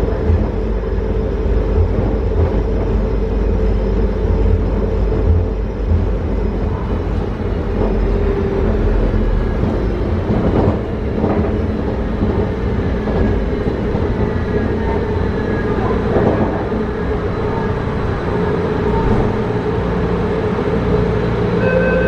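MRT metro train running on its rails with a steady rumble and hum. Its motor whine glides down in pitch in the second half as the train slows.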